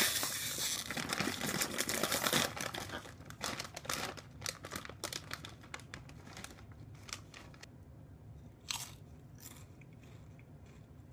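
Potato chips being bitten and chewed close to the microphone, with crinkling of the chip bag at first. The crunches come thickly at the start, then thin out and fade, with one louder crunch near the end.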